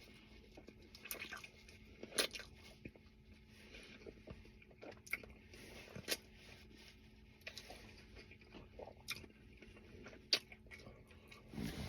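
A man chewing food close to the microphone: faint, irregular mouth clicks and smacks, with a few louder ones spread through.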